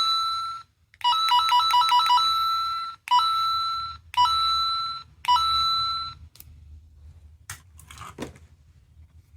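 Small electronic sound toy from a capsule-toy machine playing an electronic ringing sound: a run of quick beeps, then several held tones with short gaps between them. The sound stops about six seconds in, and a few faint clicks follow.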